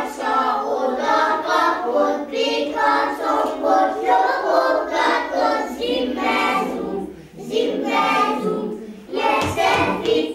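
A group of young children singing a song together, unaccompanied, with short breaths between lines about seven and nine seconds in.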